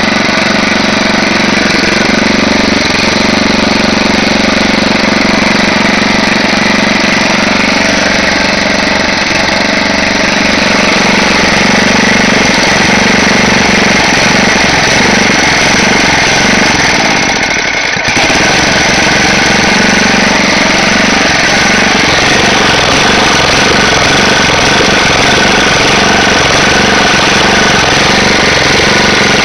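Roto-Hoe wood chipper's 8 hp Tecumseh engine running loud and steady, with a rough, rattling, vibrating run. The level dips briefly about seventeen seconds in.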